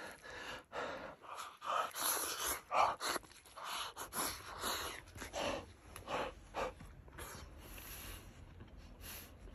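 Eating sounds: a string of short breathy puffs and slurps as hot, steaming grilled meat is blown on and taken from the bowl with chopsticks, then fainter chewing near the end.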